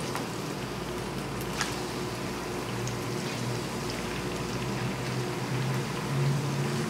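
Raw chicken pieces sizzling steadily in hot oil and garlic-ginger paste in a wok, turned with a wooden spoon.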